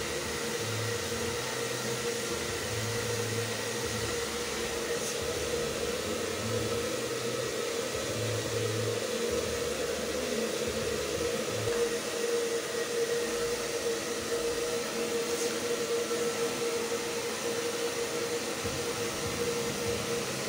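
Handheld electric hair dryer running steadily, a constant whine over the rush of air, as it blow-dries a dog's thick coat.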